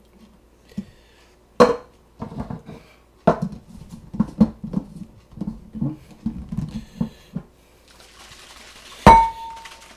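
A glass salad-dressing shaker bottle and its plastic top being handled: a sharp click, then a string of small knocks and clicks as the top is fitted, a soft rushing of liquid, and a loud knock with a brief ring near the end as the bottle is set down on the counter.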